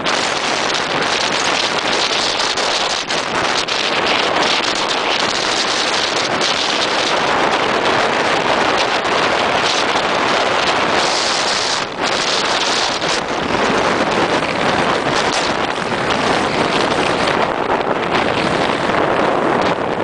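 Fierce storm wind blasting across the microphone, a loud steady rush of noise that eases briefly about twelve seconds in, with storm surf breaking on the shore beneath it.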